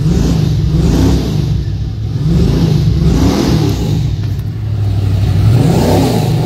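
Chevrolet Camaro Z28's V8 with a new muffled 2.5-inch exhaust, revved up and let fall back about three times while standing.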